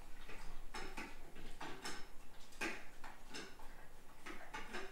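Dog eating from a stainless steel bowl: irregular light clinks and ticks of the metal bowl, about two a second.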